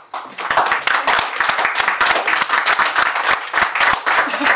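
Audience applause with many hands clapping. It starts a moment in and keeps going at a steady level.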